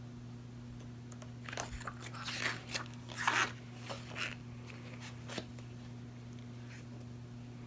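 Magazine pages being turned and handled, a handful of short paper rustles and crinkles over a few seconds, over a faint steady low hum.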